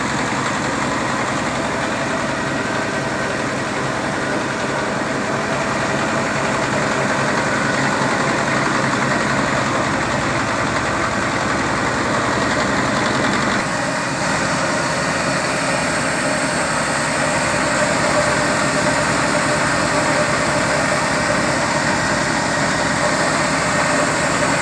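Flour mill (chakki) grinding machinery running with a loud, steady mechanical drone. The sound changes slightly about halfway through, as one low hum drops out.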